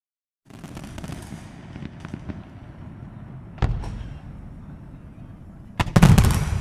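Fireworks display: crackling and low rumbling of bursting shells starting about half a second in, two sharp bangs a little past halfway, then the loudest volley of bangs near the end.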